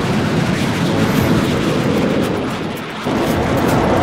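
Loud, steady roar of fighter jet engines flying past in formation. It sags slightly, then jumps abruptly back to full loudness about three seconds in.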